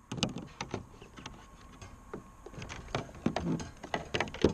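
Irregular knocks, clicks and clunks on a plastic fishing kayak as a paddle and fishing gear are handled, with one sharp knock near the end.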